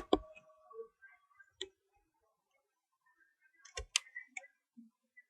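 A handful of short, sharp clicks and light knocks at uneven spacing: a loud pair at the start, one about one and a half seconds in, and a quick cluster of four or five near four seconds in.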